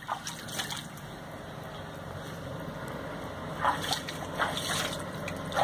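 Water splashing and sloshing around a rooster swimming in shallow water with a man's hand on its back, with a run of sharper splashes in the last couple of seconds.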